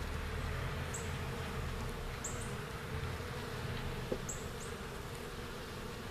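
Honey bees buzzing steadily around an open hive as its frames are handled. A few short high chirps and one sharp click about four seconds in sound over the buzzing.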